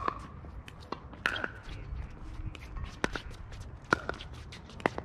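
Pickleball paddles hitting the plastic ball, sharp pops about once a second, with footsteps on the hard court between them.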